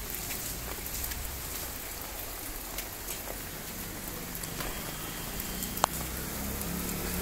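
Steady rain falling on a water-filled concrete drain channel and wet ground, with rainwater runoff running along the channel. There are scattered drop ticks and one sharp tick about six seconds in.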